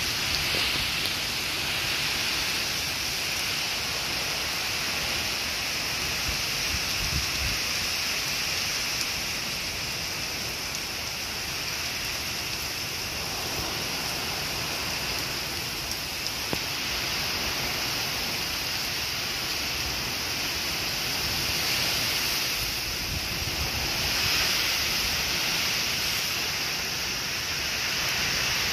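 Heavy rain pouring down steadily in a severe thunderstorm, the downpour swelling and easing slightly now and then.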